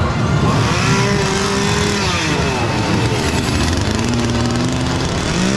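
A motor revving up and down, loud and continuous, its pitch rising, holding and falling again every second or so.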